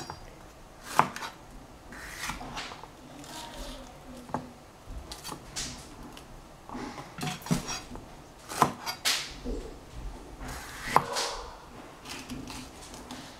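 Chef's knife slicing little sweet peppers (capsicum) on a plastic cutting board: crunchy cuts through the pepper flesh with a few sharp knocks of the blade on the board.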